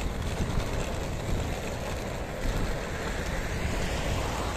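Wind buffeting the microphone: a gusting rumble and hiss.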